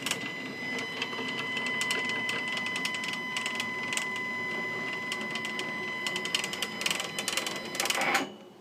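Stepcraft 840 CNC gantry travelling along its lead screw under stepper-motor drive: a steady high whine with dense rattling clicks, which stops abruptly near the end. It runs rough, a sound the owner judges not good for the machine.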